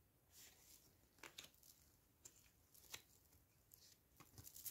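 Near silence with several faint, short ticks and rustles of tarot cards being handled during a flip-through.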